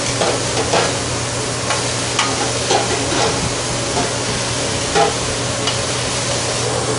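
Chopped al pastor pork, carne asada and onions sizzling on a hot flat-top griddle, with metal tongs clicking and scraping against the griddle as the meat is stirred. A steady low hum runs underneath.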